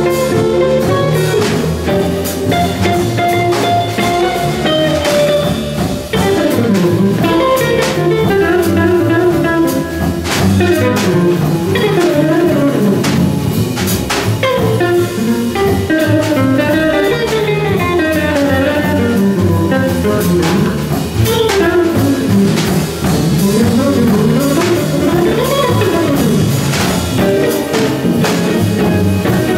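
Small jazz combo playing live: drum kit and bass under a melodic solo line that bends and slides between notes.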